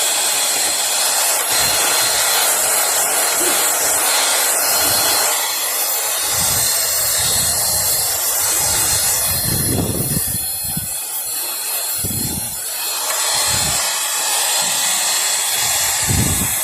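10AGIRL cordless mini vacuum cleaner running with a steady, high hissing whir as it sucks small particles out of printer tracks. Low thumps and rumbles come and go as the nozzle works against the surface.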